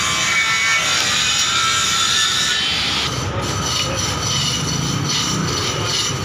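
Knife blade scraping and prying at a thin laminate (mica) sheet superglued onto wood, rasping in short repeated strokes that settle to about three a second in the second half; the laminate breaks off in pieces while the glue holds.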